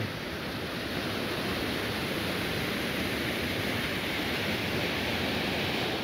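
Waterfall rushing steadily, water pouring over rock into a pool.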